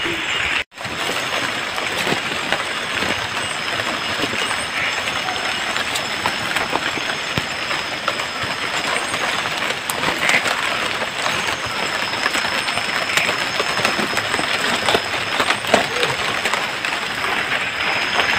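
Steady rain falling in the forest at night, an even hiss with scattered patter and drips on leaves. The sound cuts out for a moment about a second in.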